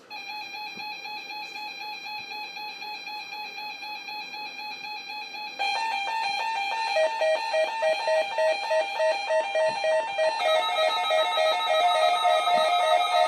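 Several weather radios sounding their beeping alert alarms, set off by a Required Weekly Test broadcast. One radio starts a fast, pulsing beep, a second joins about five and a half seconds in with a different pitch, and more join around ten seconds in, so the beeping grows louder in steps.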